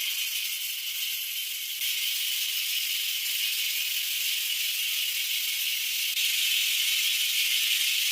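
Power saw ripping timber: a steady, high-pitched whirring hiss that gets a little louder about two seconds in and again about six seconds in.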